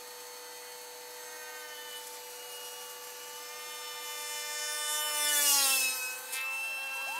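Motor and propeller of a radio-controlled scale Pipistrel Sinus model plane whining in a nose-up hover, its steady pitch climbing slowly. About five seconds in it gets loudest with a rushing sweep as it passes close, and the pitch drops after.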